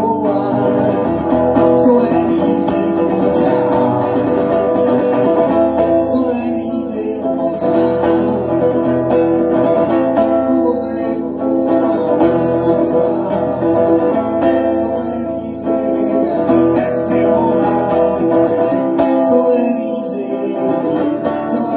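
Harmony archtop electric guitar with a Lindy Fralin P-90 pickup playing a slow song, amplified through Mackie Thump 12A powered PA speakers.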